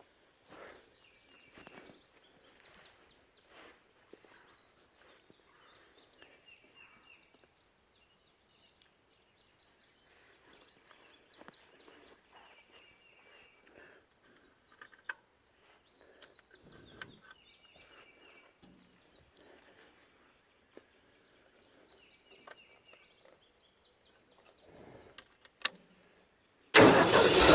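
A small bird chirping a short call now and then over faint outdoor quiet, with a few light knocks. Near the end the 302 air compressor's engine, running on a newly fitted fuel pump, starts suddenly and runs loudly.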